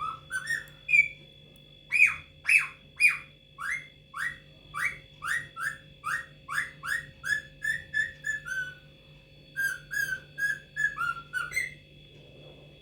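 Indian ringneck parakeet calling over and over, a long run of short, sharp falling calls about two a second, with a brief pause partway through and stopping near the end.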